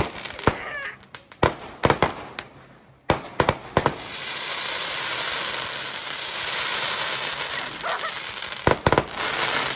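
Fireworks going off: a quick run of sharp bangs over the first few seconds. Then a steady hiss of burning and launching fireworks for about four seconds, and a few more bangs near the end.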